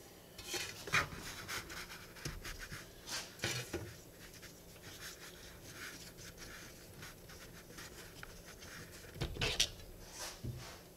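Handling noise during a mower oil change: a metal drain pan scraped into place on a steel workbench, then the plastic dipstick cap twisted loose, a string of small scrapes and clicks, with louder knocks about a second in and near the end.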